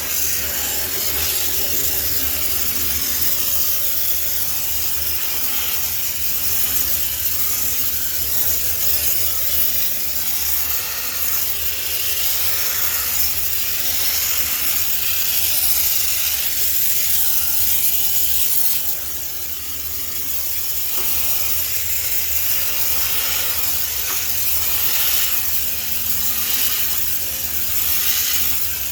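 High-pressure steam cleaner jetting steam into a front-loading washing machine's drum, a steady loud hiss over the low hum of the steamer's unit, easing off briefly about two-thirds of the way through.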